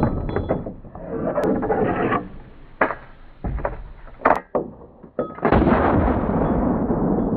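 Slowed-down sound of a side-by-side double-barrel 12-gauge shotgun being loaded and fired: several sharp clicks and knocks of the action and shells, then, about five and a half seconds in, a deep, drawn-out shot that fades slowly.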